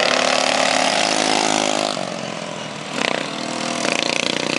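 Small single-cylinder engines of racing lawn mowers running hard on a dirt track, a steady buzzing engine note. The sound drops away about two seconds in and picks up again near the end.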